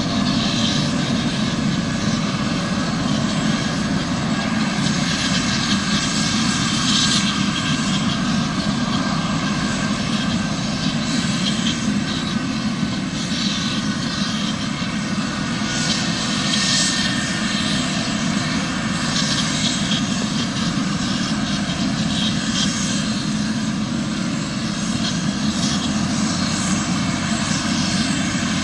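Eurocopter AS365 N3+ Dauphin twin-turbine helicopter running on the ground with its main rotor turning: a steady turbine whine over the rotor and engine noise.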